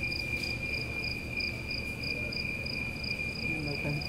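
Crickets chirping: one continuous high trill overlaid by a higher, pulsed chirp repeating about three times a second, over a low background rumble.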